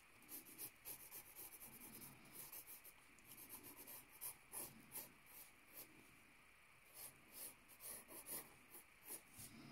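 Graphite pencil scratching on notebook paper in short, quick shading strokes, faint and in irregular runs, with a pause about six seconds in.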